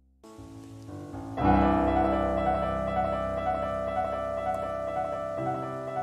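Solo piano passage of an art song accompaniment, with no voice. It begins with a soft entry, then a loud chord about a second and a half in. A high note repeats about twice a second over held chords, and the bass moves to a new note near the end.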